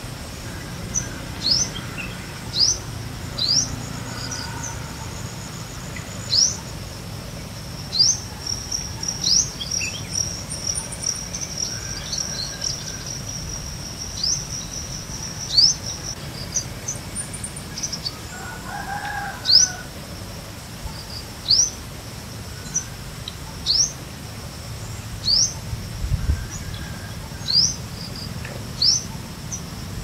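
A bird calling a short, sharp, rising high note over and over, about once every one to two seconds, over a low steady background hum. A steady high whine joins for about ten seconds in the middle.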